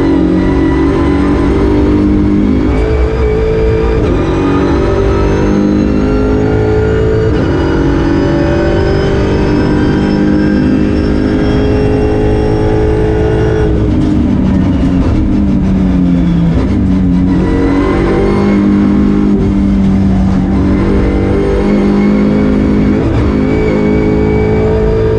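Volkswagen Golf GTI TCR race car's turbocharged four-cylinder engine at full throttle, heard loud from inside the cabin. The pitch climbs steadily for most of the first half, falls away through several downshifts about halfway in, climbs again under acceleration, and drops once more near the end.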